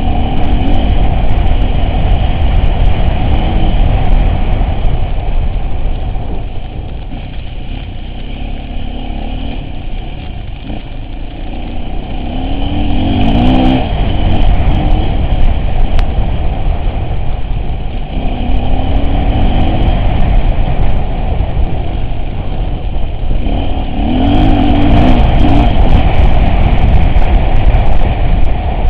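A vehicle engine running while driving off-road, revving up and easing off several times over a heavy low rumble, quieter for a few seconds in the middle.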